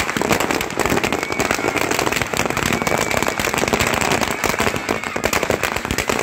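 Firecrackers packed inside a burning effigy going off in a rapid, continuous crackle of bangs.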